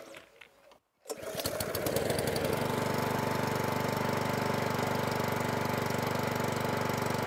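Parkside PBM 132 B1 lawn mower's 132 cc four-stroke engine pull-started for the first time after priming: it catches about a second in, its strokes quicken, and it settles into steady running.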